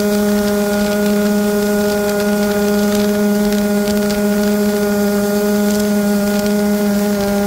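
Yamaha Aerox scooter's tuned 70 cc Minarelli LC two-stroke engine, with a Jollymoto expansion exhaust, running flat out at a steady high pitch. It is held at high revs by the variator on lighter 4 g rollers; the variator is too small to turn the extra revs into more speed.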